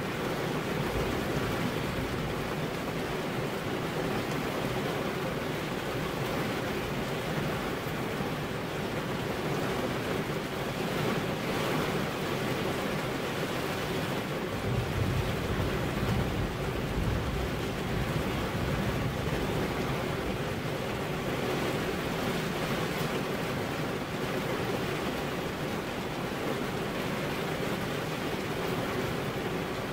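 Steady heavy rain, an even rushing noise with no let-up. A low rumble swells briefly about halfway through.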